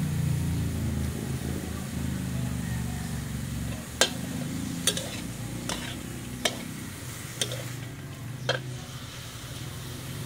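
A metal spatula stirring diced meat in a metal wok, with about six sharp clinks of spatula on wok in the second half, over light frying sizzle. A low engine hum runs underneath, loudest in the first few seconds.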